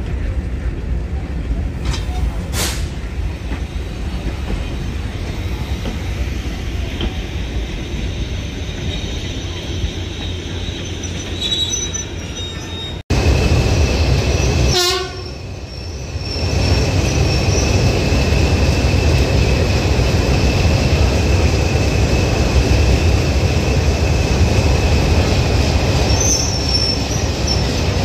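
Diesel train running, with a deep steady engine and rail rumble. About halfway through the sound cuts abruptly; after that it is louder, with a steady high squeal over the rumble.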